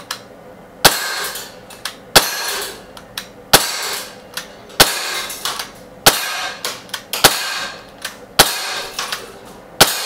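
Umarex Glock 19 .177 CO2 BB pistol firing eight sharp shots at an even pace, about one every 1.3 seconds. Each shot is followed by a short hissy tail and a fainter tick. The pistol is non-blowback, so there is no slide clack.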